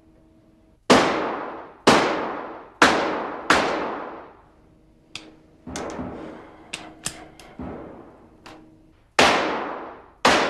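Revolver shots on a police firing range. Four loud shots come about a second apart, then a stretch of fainter shots and sharp clicks, then two more loud shots near the end, each shot trailing off in a ringing echo.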